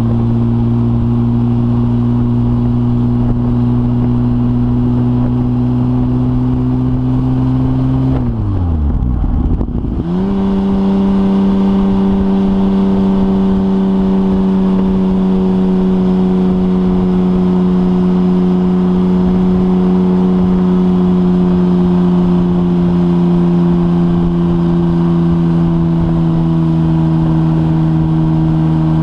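2004 Porsche 996 Turbo's twin-turbo flat-six running through a decatted Kline 70mm X stainless exhaust. It pulls steadily with slowly rising pitch, drops sharply in pitch about eight seconds in through an upshift, then picks up again at a lower pitch and holds steady.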